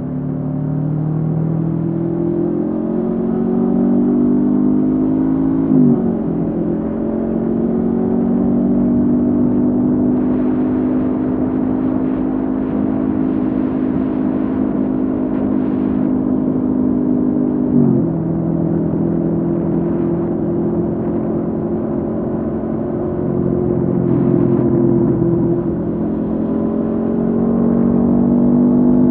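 Honda CB500F parallel-twin engine running through a Mivv GP Pro exhaust while riding. Its note rises at first, then holds steady at cruising revs, breaking sharply for a moment twice, about six and eighteen seconds in, and climbs again near the end.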